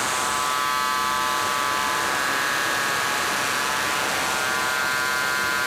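Live electronic soundscape holding a steady drone: an even hiss with a dense cluster of held tones, constant in level throughout.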